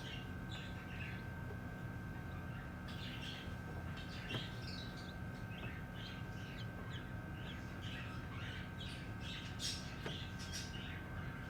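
Baby chicks peeping: many short, high chirps in quick, irregular succession over a steady low hum.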